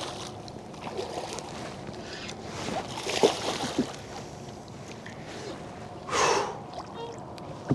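Small splashes and knocks of water around a kayak while a hooked striped bass is fought, with a loud breath from the angler about six seconds in.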